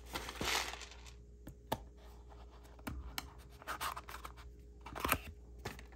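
Faint handling noise of small quadcopter parts on a bench: a scratchy rub about half a second in, then a few light clicks and taps.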